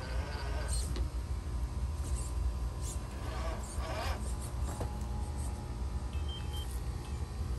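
Electric motor and geared drivetrain of a Traxxas TRX-4 RC crawler whirring in short spurts as it crawls over large river rocks, with its tyres scrabbling on the stones, over a steady low rumble.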